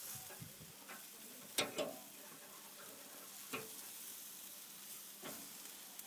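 Chicken sizzling on a grill over a small wood fire: a faint steady hiss broken by a few sharp crackles, about three in all.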